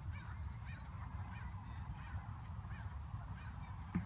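Faint honk-like calls, short and rising then falling, repeating about twice a second over a steady low rumble, with a single thump near the end.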